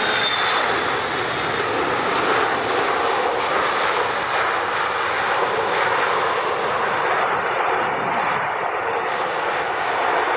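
Jet airliner's engines: a loud, steady rush of engine noise, with a faint high whine that fades out in the first moment.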